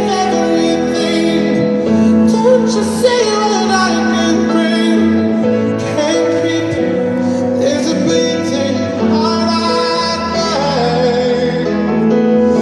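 Slow ballad sung by a high voice over a steady instrumental accompaniment, the voice holding long notes.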